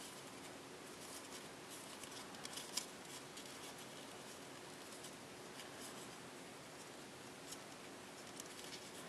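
Printed copy paper crinkling and crackling as it is folded by hand into a small origami piece: scattered soft crackles, the sharpest about three seconds in.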